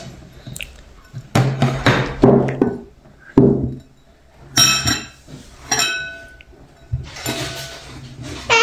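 An empty bowl knocked and clinking against a table as a toddler pushes it around: several separate knocks in the first few seconds, then two brief clinks that ring out about halfway through.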